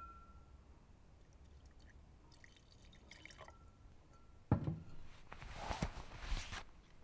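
Faint glass clinks, then a sharp knock about four and a half seconds in as a manual water-bottle hand pump is pressed. Water then splashes into a glass for about two seconds.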